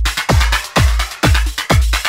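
Electronic dance track from a 1994 12-inch vinyl record: a steady four-on-the-floor kick drum at about two beats a second, each kick dropping in pitch into a deep bass, under bright synth layers.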